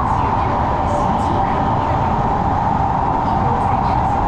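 Metro train running through a tunnel, heard from inside the car: a steady, loud rumble of wheels and running gear with a constant high hum over it.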